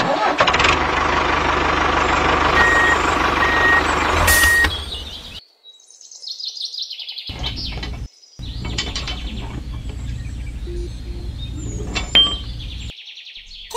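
Tractor engine running with three short reversing beeps as it backs up; after a brief break the engine keeps running at a lower, steady rumble, with a sharp click near the end as the pump trailer is hitched. Birds chirp in the gaps.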